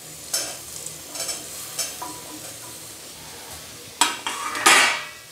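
Chopped green capsicum tipped into a hot kadai of masala-fried potatoes, with a steady sizzle and a few light scrapes. About four seconds in, a long steel spoon scrapes loudly around the pan, stirring.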